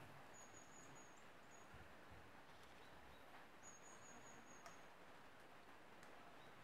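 Near silence: faint steady hiss, with two faint, high, thin squeaky tones of about a second each, one near the start and one a little before the middle.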